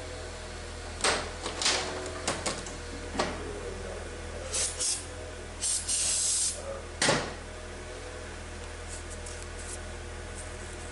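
Scattered knocks and clicks of tools and transmission parts being handled on the bench, with two short hissing bursts near the middle, over a steady low hum.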